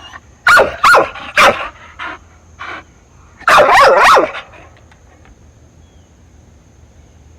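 Puppy barking: three sharp barks in the first second and a half, two fainter ones, then a quick flurry of overlapping barks around the middle.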